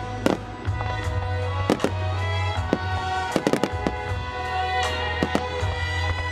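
Fireworks bursting in quick succession, a string of sharp bangs with several close together about three and a half seconds in, over loud music.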